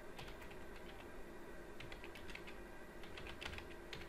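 Typing on a computer keyboard: quick, irregular keystroke clicks, fairly faint.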